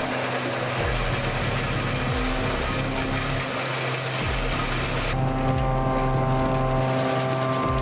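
FAE forestry harvester running steadily at work, a steady mechanical noise with a low engine hum; the sound changes about five seconds in, taking on more steady tones.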